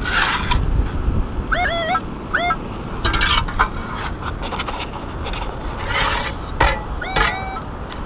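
Shovel digging into wet sand and gravel among rocks, scraping and knocking against stones in several strokes. About a second and a half in, a Minelab metal detector gives two short rising beeps as its coil passes over the buried target, over a steady low rumble.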